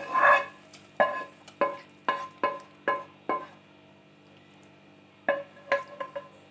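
A pan being emptied into an aluminium pressure cooker: a quick series of sharp metallic knocks with a short ring, as the pan and spoon are tapped and scraped against the cooker rim. After a lull of about two seconds come a few more knocks.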